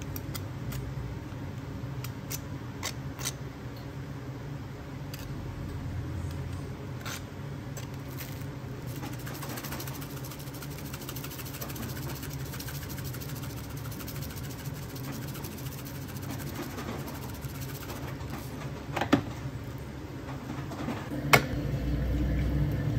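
Steady low machine hum of shop equipment with scattered light clicks and clatter from handling. There are two sharper knocks a couple of seconds apart near the end.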